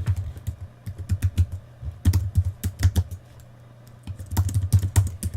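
Typing on a computer keyboard: quick bursts of key clicks, each with a dull thud, and a short pause a little past three seconds in.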